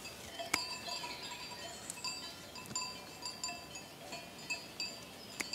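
Faint, irregular tinkling of small bells, many short ringing notes overlapping, with two sharp clicks, one about half a second in and one near the end.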